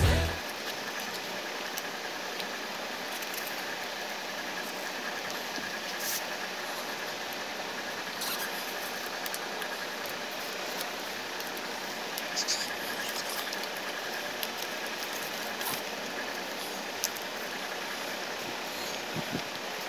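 Sheet of paper being folded and creased by hand into a glider, with scattered short rustles and crinkles over a steady hiss.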